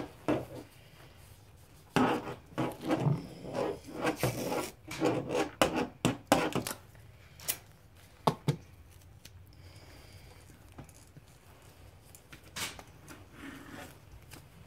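Fabric medical tape being pulled off its roll and torn, with rustling as it is pressed down, in rasping bursts of short strokes during the first half and again briefly near the end.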